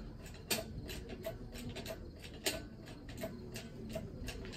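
Engine hoist being worked to lift an engine: irregular metallic clicks and ticks, about one or two a second, a few louder than the rest.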